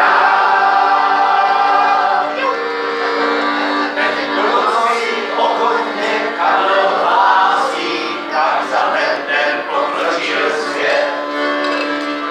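A group of people singing together to an accordion, which holds steady chords underneath. The singing is fullest for the first two seconds, then thins to looser, broken phrases while the accordion notes carry on.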